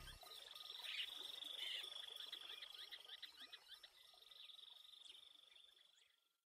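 Recorded nature ambience: a steady high trilling chorus with many quick chirps over it, fading out to silence near the end.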